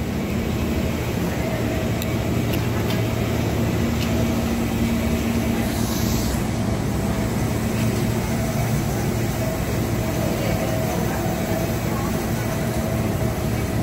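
Steady hum of an electric commuter train standing at a station platform, its onboard equipment running, with several low tones held level throughout.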